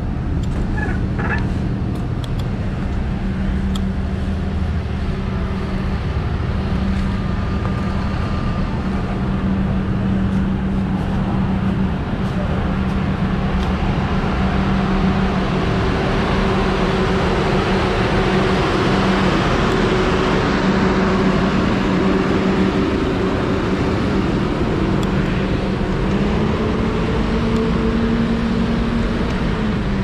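Heavy road-construction machinery running: a steady low diesel drone with a dense grinding rumble, growing louder about halfway through as a road milling machine is passed close by.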